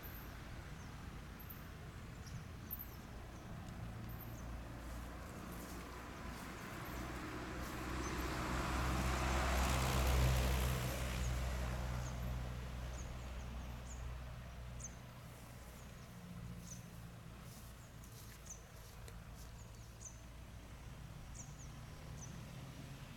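A motor vehicle passing by, its engine hum and tyre noise swelling to a peak near the middle and fading away. Small birds chirp repeatedly throughout.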